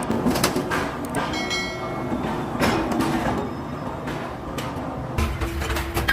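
Metalworking clatter in an aluminum kettle factory: irregular knocks and clanks of aluminum parts, a brief metallic ring a little over a second in, then a machine hum that starts about five seconds in.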